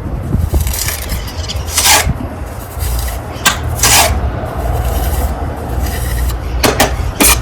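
Steel pointing striker scraping wet mortar into the vertical brick joints: about five short scraping strokes, with a steady low rumble underneath.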